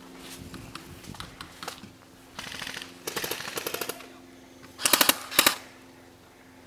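Airsoft guns firing in full-auto bursts, strings of rapid sharp clicks. Two fainter bursts come about two and a half and three seconds in, then two loud bursts close together about five seconds in.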